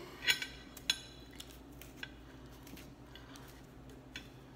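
A few sharp clicks and light taps of a metal fork and fingers on a plate as the baked pot-pie crust is pulled off, the loudest just after the start and another about a second in, then smaller scattered ticks.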